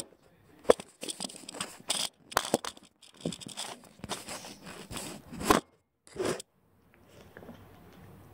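Handling noise on an SJCAM M10+ action camera: a child's hands and fingers rubbing, scraping and knocking against the camera body as it is grabbed and moved about. A dense run of scrapes and knocks that dies away about two-thirds of the way through.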